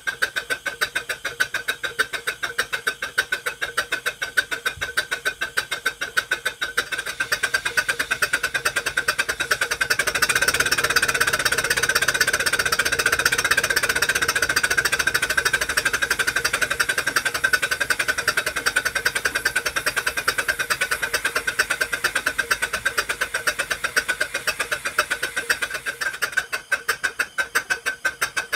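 V-4 single-acting steam engine running on about 15 psi of compressed air, turning over in quick, even beats. About ten seconds in it gets louder and the beats run together as it speeds up. Near the end it slows back to distinct beats.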